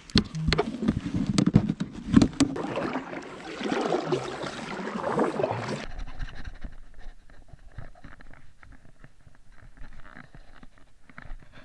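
Handling noise on a kayak while fishing: knocks, clicks and scrapes against the hull and gear with water sounds. About six seconds in it drops abruptly to a quieter stretch of light ticking.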